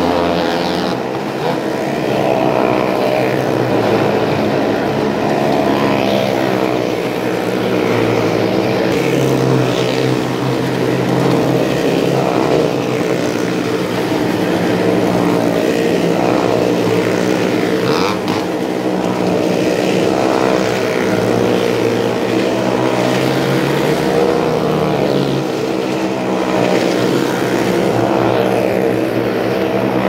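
Motorcycle engine running hard as it circles the wooden wall of a well-of-death drum, its pitch swelling and falling about every two seconds.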